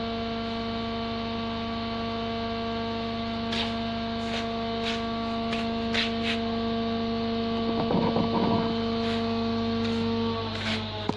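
An electric motor hums steadily at one pitch, then is switched off and winds down, its pitch falling, near the end. A few sharp clicks come in the middle, with a short crackle a little later.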